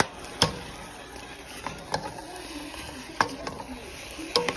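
Metal spoon stirring mashed potatoes in a saucepan, clicking sharply against the side of the pot about four times.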